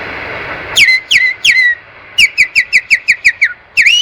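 A man whistling in imitation of a nightingale's song: three falling slurred notes, then a fast run of short falling notes about six a second, then swooping notes near the end. Under a second in, the steady noise of a passing electric train cuts off suddenly.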